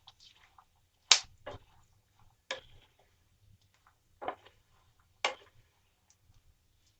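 Almonds and peanuts roasting in a little oil in a pan, crackling: five sharp, irregularly spaced cracks, the loudest about a second in. This crackling is the cook's sign that the nuts are done.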